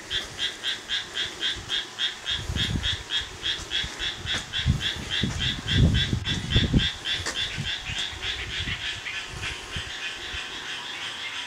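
A frog calling in a quick, even series of croaks, about four a second. Low rumbling comes and goes in the middle.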